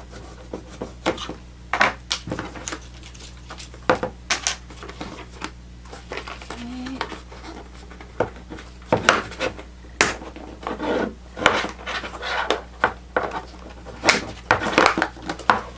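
A gaming mouse being unpacked from its box: cardboard and plastic packaging handled, with many scattered clicks, scrapes and rustles that come thicker in the second half.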